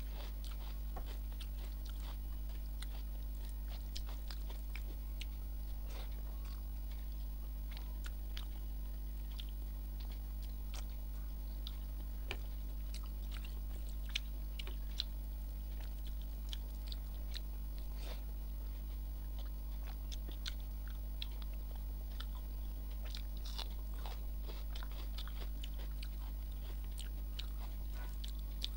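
Close-miked eating sounds: chewing and small wet mouth clicks as rice mixed with egg omelet curry is eaten by hand, with soft squishing of the rice being mixed on the plate. A steady low hum runs underneath.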